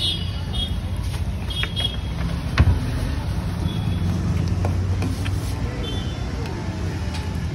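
Steady low rumble of street traffic, with a few light clinks and one sharp knock about two and a half seconds in.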